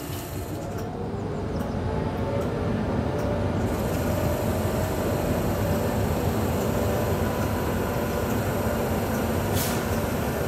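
Stationary Class 86 electric locomotive with its onboard equipment running: a steady machine hum and whirr with a few held tones. It grows louder about two seconds in and then holds.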